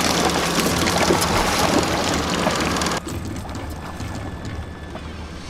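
Boat's outboard motor running with a steady hum under the rush of water and wind. About three seconds in the sound cuts off abruptly and drops to a quieter low hum.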